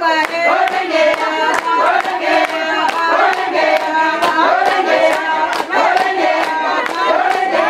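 A group of voices singing together in chorus over a steady rhythm of hand claps.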